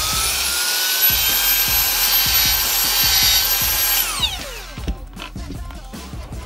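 Cordless angle grinder motor running at full speed with a steady high whine, then switched off about four seconds in and winding down in falling pitch: a test run after its control board was replaced.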